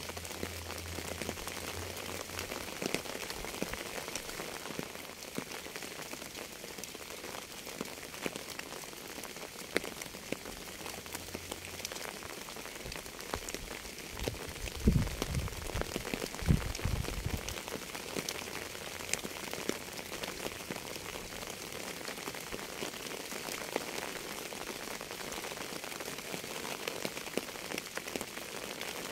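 Steady rain falling, an even hiss dotted with the ticks of individual drops. About halfway through come two short, louder low rumbles.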